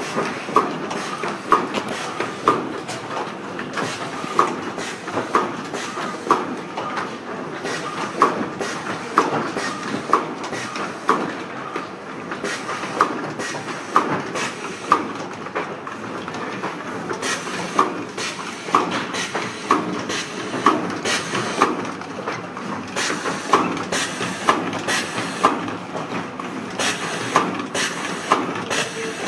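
Automatic tube cartoning machine running: a steady mechanical clatter with a sharp click about once a second as it cycles through tube feeding and carton folding.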